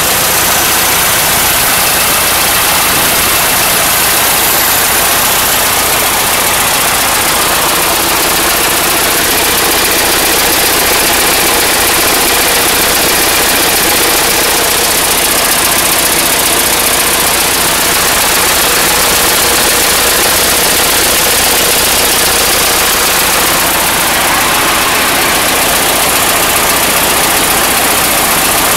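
1916 Dodge Brothers four-cylinder engine idling steadily, on its first run after at least six years in storage.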